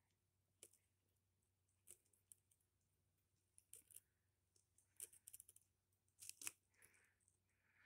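Faint, scattered rustles and crinkles of a sheet of lined paper being handled, a few short crackles at a time in near silence, the loudest a little after six seconds in.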